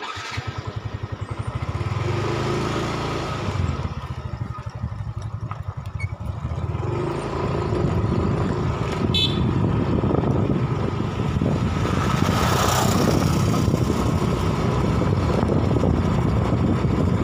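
Small motorcycle engine running as the bike pulls away and rides along, its steady pulsing getting louder about halfway through, with wind noise on the microphone. A brief high beep sounds about nine seconds in.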